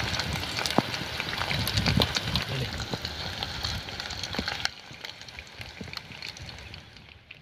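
Masala-coated fish pieces sizzling and crackling in hot oil in a small pan, with a steady hiss and many sharp little pops. The fish is fully fried and being lifted out. The sizzle drops suddenly and stays quieter from about two-thirds of the way through.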